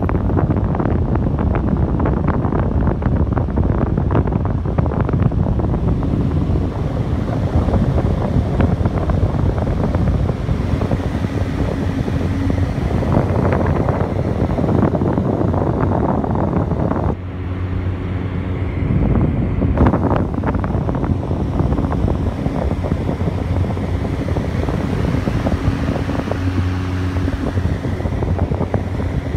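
Rita/Windy industrial exhaust fan running behind a louvered grille: a loud, steady rush of air with a low hum, the airflow gusting on the microphone.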